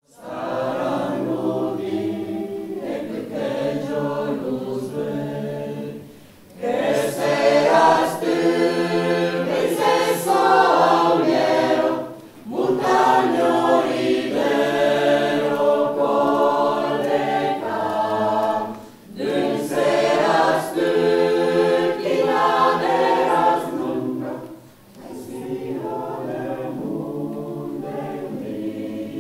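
A choir singing in several voices, in phrases of about six seconds each with a short break between them; the first and last phrases are quieter than the middle ones.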